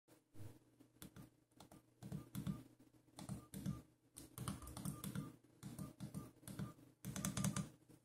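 Plastic keypad buttons of a Philips Xenium E218 feature phone being pressed in quick runs, each press a soft click, many with a short high key beep.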